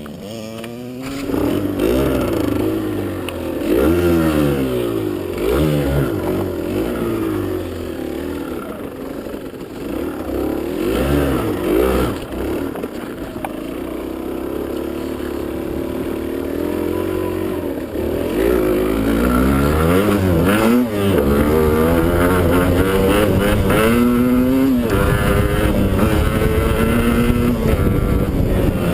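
Motocross motorcycle engine revving up and down repeatedly as the rider accelerates, shifts and backs off, holding higher, steadier revs over the last few seconds.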